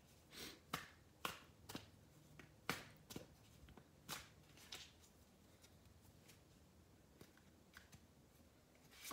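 A deck of tarot cards being shuffled by hand: faint, irregular soft slaps and clicks of the cards, closer together in the first few seconds, with one slightly louder slap near the end.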